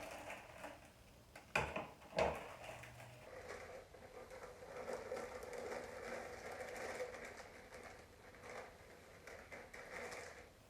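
Two sharp knocks, then a soft steady rustle of cake-mix ingredients being poured into a mixing bowl.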